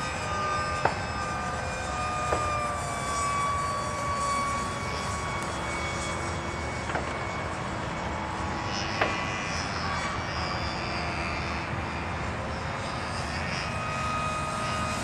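70 mm electric ducted fan of a radio-controlled F-18 model jet whining in flight. Its pitch holds fairly steady, drifting down a little over the first few seconds. A few short clicks are heard.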